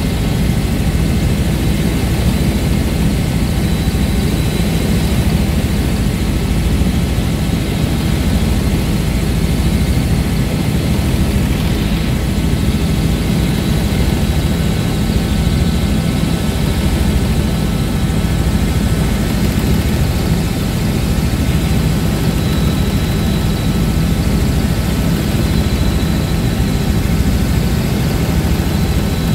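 Helicopter in flight: the steady drone of its engine and rotor, with a thin, faint high whine running over it.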